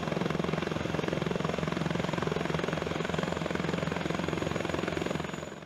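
Eurocopter Tiger attack helicopter running, its rotor blades beating at a steady fast rate over the engine noise, fading out near the end.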